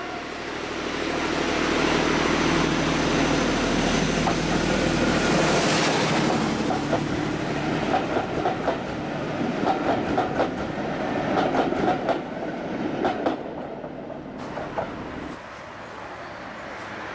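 Ex-British Railways Class 14 diesel-hydraulic locomotive passing under power, its Paxman Ventura diesel engine running loudly and steadily. The engine then fades, and the coaches it hauls roll past with a rhythmic clickety-clack of wheels over rail joints, which gets quieter near the end.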